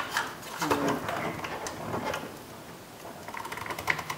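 Plastic wiring harness connectors being unlatched and pulled from a car door's switch panel: a run of small plastic clicks and rattles, coming thicker near the end.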